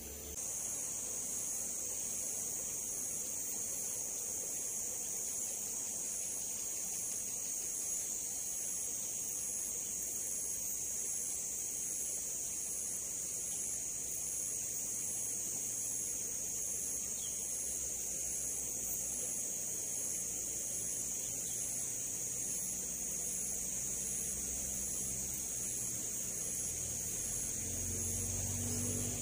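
Insect chorus, a steady shrill high-pitched drone with a faint regular pulse about once a second.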